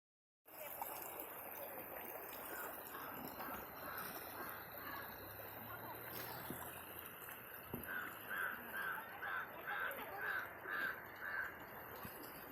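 A bird calling in two runs of short, evenly repeated calls, about two or three a second, over steady background noise.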